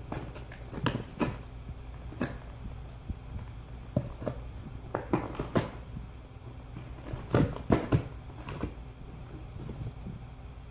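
Golden retriever chewing and ripping a cardboard box with its teeth: irregular crackles and tearing of cardboard, with the loudest flurry of rips about seven to eight seconds in.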